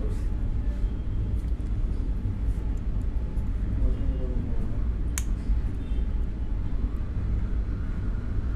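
Hot air rework station blowing a steady stream of hot air onto a phone circuit board to desolder its metal shield can. There is a single sharp click about five seconds in.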